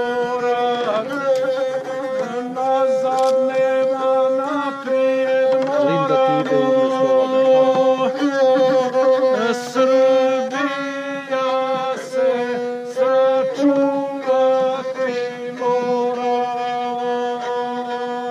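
A gusle, the single-string bowed Balkan folk fiddle, is playing a melody that stays mostly on one note, with short ornamented turns between notes.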